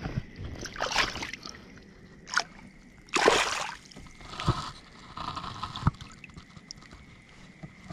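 A hooked pickerel thrashing at the water's surface while being grabbed by hand: a run of short, uneven water splashes, the loudest about three seconds in.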